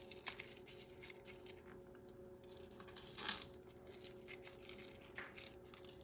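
Faint rustles and light ticks of fingers pinching birch smoke sea salt from a small tin and rubbing it into a raw bison steak, with a short louder rustle about three seconds in. A faint steady hum runs underneath.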